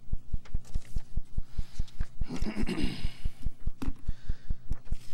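A regular low thumping pulse, about five beats a second, running steadily through the room sound. A brief rustle comes about two and a half seconds in, and a single click a little before four seconds.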